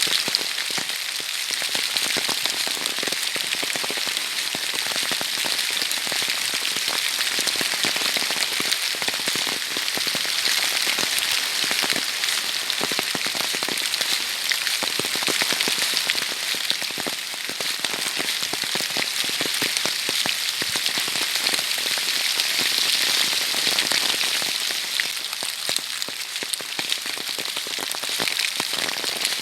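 Heavy autumn rain falling steadily, a dense patter of countless drop impacts.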